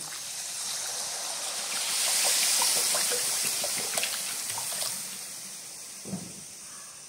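Water poured from a plastic bottle into a hot steel kadhai of fried tomato masala, with a hiss that builds to its loudest a couple of seconds in and then fades. A ladle stirs through the gravy near the end.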